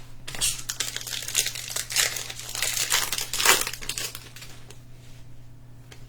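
Foil trading-card pack wrapper crinkling and tearing as a pack is opened, busiest for about the first four seconds, then quieter handling.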